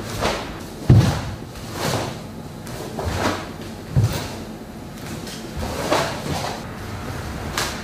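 A karate gi snapping and swishing with each strike of a kata, about once a second. Two heavier thuds land about a second in and about four seconds in.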